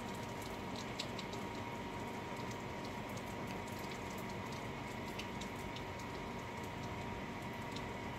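Steady rain falling, with scattered raindrops tapping irregularly close by.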